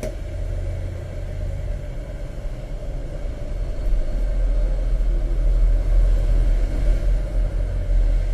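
Steady low rumble with a fainter hum above it, growing a little louder about four seconds in.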